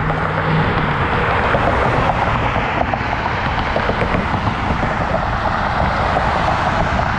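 Wind rushing over the camera microphone on a moving bicycle, mixed with road traffic noise: a steady, loud rushing with a low rumble. A car engine's low hum fades out in the first second.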